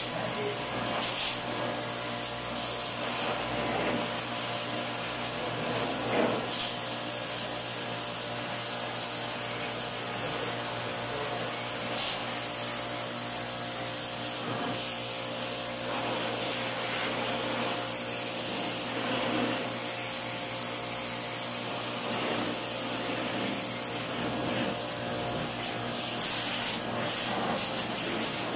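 Pressure washer running steadily, its water jet hissing against the coils and metal chassis of a stripped window-type air conditioner, with a few brief louder spurts.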